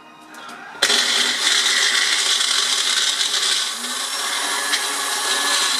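Bullet-style personal blender blending a fruit smoothie with ice. The motor starts suddenly about a second in, then runs steadily, a little lower from about four seconds in. The ice is not going through the blades as it should.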